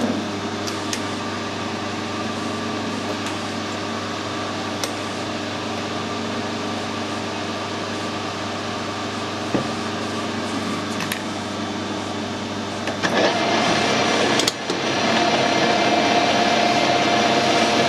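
Metal lathe running steadily, turning a steel bolt blank down to diameter, with a steady motor hum and a few sharp clicks. About two-thirds of the way through it gets louder and a steady whine sets in.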